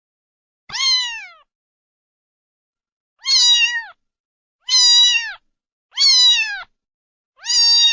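A cat meowing repeatedly: five meows of under a second each, every one dropping in pitch at its end. The first comes alone, and the other four follow closer together, about every second and a half.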